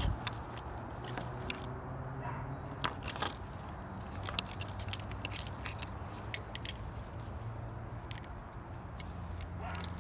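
Metal enamel pins on a Disney pin-trading lanyard clicking and jingling against each other as the lanyard is handled: a scattering of small, sharp clicks over a low steady rumble.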